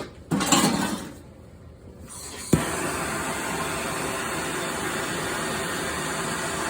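A plumbing torch for soldering copper pipe lit with a sharp click about two and a half seconds in, then its flame hissing steadily. A brief noise comes just before, near the start.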